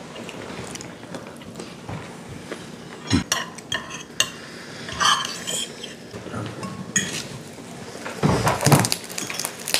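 Forks and spoons clinking and scraping against plates as several people eat, with scattered light clinks.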